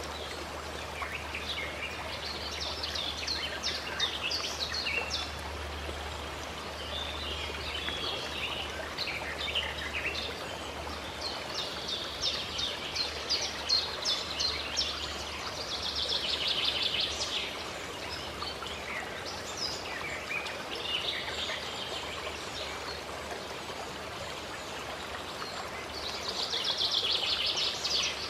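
Birds singing and chirping over a steady rush of running water, with a fast trill of rapid notes near the middle and another near the end.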